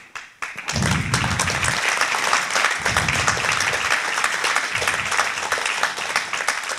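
Audience applauding, many hands clapping together, starting about half a second in and continuing steadily.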